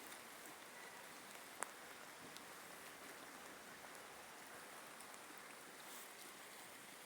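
Rain falling steadily, an even hiss scattered with small drop ticks, and one sharper drop tap about a second and a half in.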